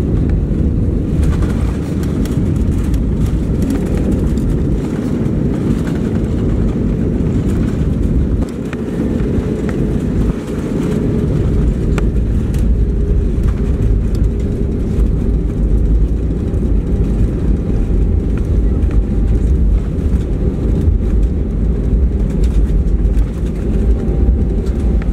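Cabin noise inside an Airbus A320 on its landing roll: a loud, steady low rumble of the engines and the wheels on the runway, dipping briefly about eight and ten seconds in.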